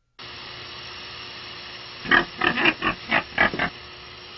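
A pig grunting in a quick series of short grunts, about three a second, starting about two seconds in, over a steady hiss.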